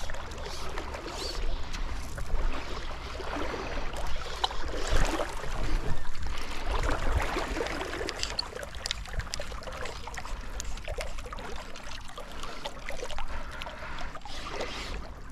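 River water splashing and trickling, swelling and ebbing unevenly, with a few light clicks and a steady low rumble underneath.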